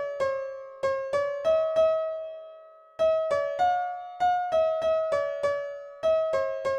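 A slow single-note melody played on a piano-like keyboard, each note struck and left to die away, in short phrases with a held note fading out between them.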